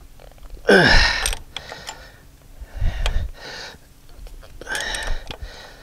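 A man's strained grunt falling in pitch about a second in, then heavy breaths and light metallic clicks. The sounds come from wrenches working a seized fuel-line flare fitting, which is twisting the line off.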